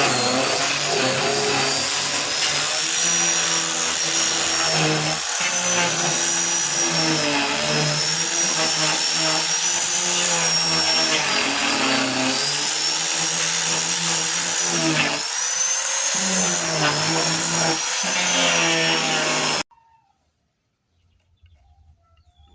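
Electric power tool running under load on wood, its motor whine wavering in pitch as the load changes. It cuts off abruptly near the end.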